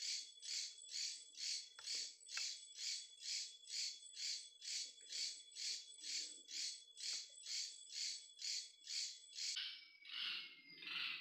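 Night insect chorus: a pulsing high call repeating about three times a second over a steady high trill, changing to a slower, lower pulsing near the end.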